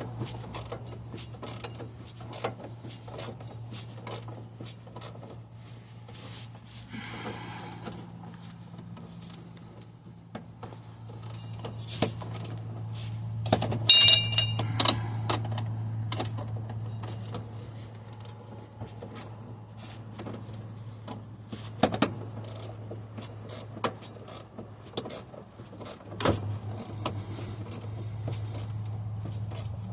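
Hand tools and metal parts clicking and clinking while the transfer case shifter linkage is worked on, with a bright metallic jingle about halfway through, over a steady low hum.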